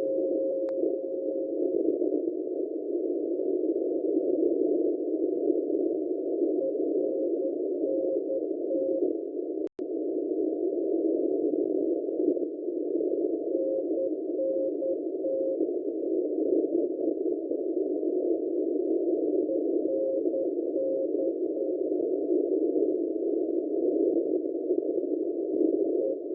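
Morse code (CW) on shortwave, heard through a receiver's narrow filter as band-limited static hiss with a single faint tone. The tone holds steady for about two seconds, then comes and goes in a few short groups of keyed dots and dashes. The audio drops out for an instant about ten seconds in.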